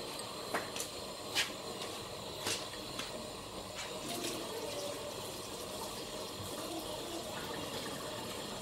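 Chopsticks clicking against a ceramic rice bowl, a few sharp taps in the first three seconds, over a steady rushing background noise.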